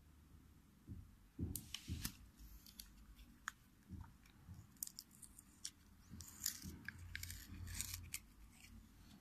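Plastic wire spool handled by fingers: faint scattered clicks and scratchy crackles of fingernails and fingertips on the plastic, with dull handling thumps. The crackling is busiest from about halfway through.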